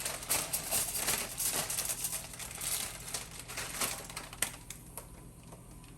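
Plastic bag crinkling as it is handled, dense crackling for about four seconds, then thinning out to a few scattered crinkles and a sharp click.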